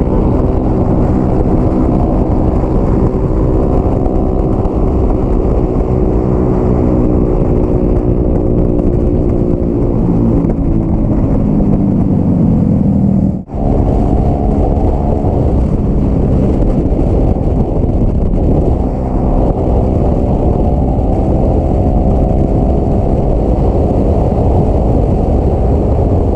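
Motorcycle engine running steadily while riding, its pitch drifting a little up and down. The sound drops out for a moment about halfway through.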